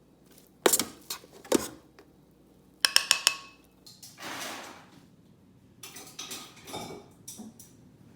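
Kitchen utensils and cookware clinking and knocking against dishes. A few sharp knocks come first, then a quick run of ringing clinks about three seconds in, a short scraping swish, and more clatter near the end.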